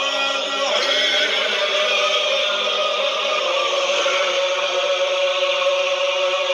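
A group of men chanting together in unison, an Islamic dhikr, holding one long steady note.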